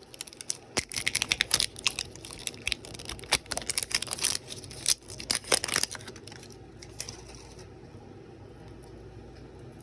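Wrapper of a MiniVerse Real Brands package being torn and crinkled open by hand: a dense run of sharp crackles and ticks that dies away about seven seconds in.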